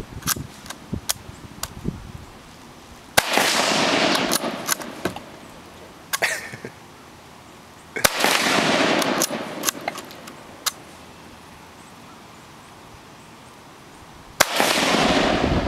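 Three gunshots about five seconds apart, each a sharp crack followed by about a second of echo rolling off. Faint clicks and knocks come between the shots.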